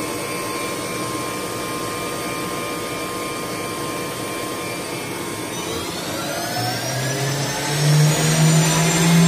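Spindle of a Samsung MCV-50 vertical machining center running steadily at about 5,000 RPM with a high whine. About halfway through it speeds up, the whine rising in pitch and growing louder before levelling off near the end.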